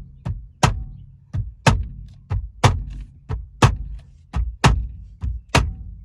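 Lexus steering wheel being struck over and over to work it loose from the steering column shaft, about two sharp thunks a second in pairs, a lighter hit followed by a heavier one.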